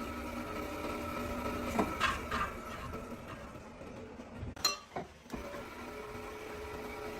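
Steady hum of a running workshop machine, with a few metal clinks about two seconds in and two sharp knocks about halfway through.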